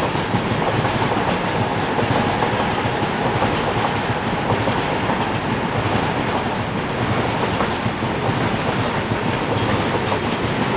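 Freight train of BCNA covered wagons rolling past at a steady level, the wheels clattering on the rails.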